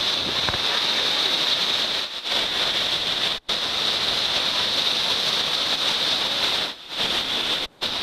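Steady rushing hiss of tropical-storm wind and surf on the shore, with wind buffeting the microphone; it cuts out briefly a few times.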